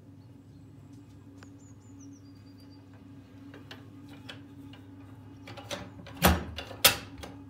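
A glazed window being pulled shut and latched. A run of light clicks and rattles ends in two loud knocks about half a second apart as the frame closes and the handle locks.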